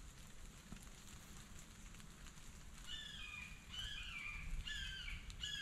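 A hawk calling: starting about three seconds in, a run of about four loud, piercing calls in quick succession, each one dropping in pitch, repeating a little faster than once a second.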